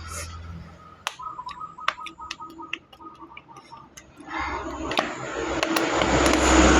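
Close-up eating sounds of spicy instant noodles: a scatter of small clicks and taps, then, from about four seconds in, a loud, dense noisy rush of eating.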